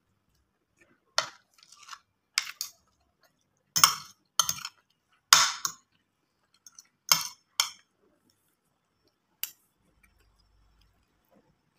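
Metal spoon and fork clinking and scraping against a plate while scooping food: about eight sharp clinks at uneven intervals, with quiet between them.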